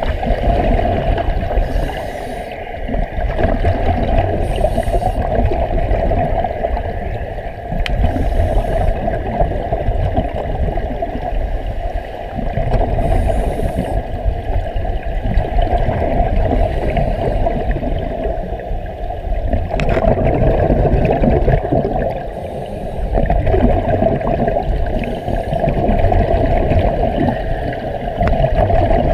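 Underwater bubbling and gurgling from scuba divers breathing through their regulators, the exhaled bubbles swelling and fading every few seconds over a steady low rumble.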